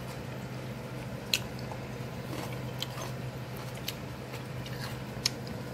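A fork working into grilled salmon on a ceramic plate, giving a few faint separate clicks and taps, over a steady low hum.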